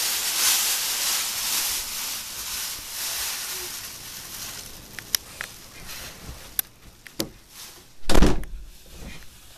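Mylar space blanket crinkling and rustling as it is wrapped around a moving person, fading away over the first few seconds. A few sharp clicks follow, then a loud bump near the end.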